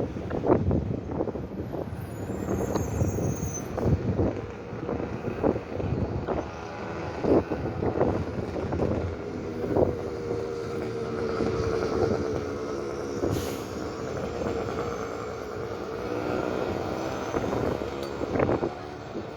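Strong wind buffeting the microphone in irregular gusts and thumps, with a faint steady low hum underneath from about halfway through.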